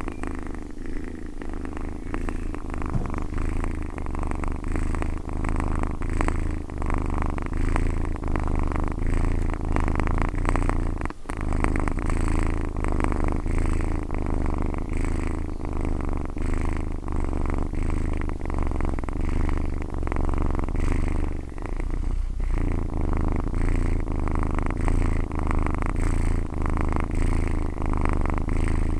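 Domestic cat purring, close up and loud, in a continuous low rhythmic rumble that swells and eases with each breath, breaking off briefly twice.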